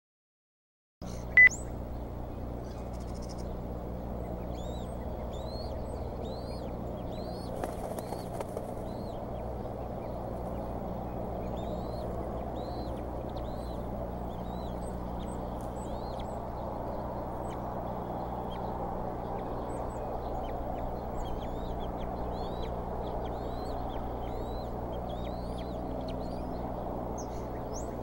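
Repeated short, high bird chirps, roughly one or two a second, over a steady low electrical hum and hiss from an outdoor nest-camera microphone. The sound cuts in about a second in with a single sharp click.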